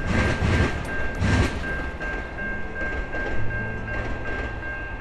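Amtrak passenger train rolling away over the grade crossing, its wheels clacking over the rail joints in the first second or so and then fading. A steady high ringing tone from the crossing's warning signals carries on throughout.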